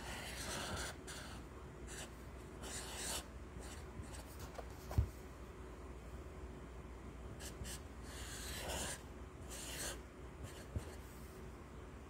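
Sharpie marker's felt tip rubbing across lined paper in short drawing strokes, with one low thump about five seconds in.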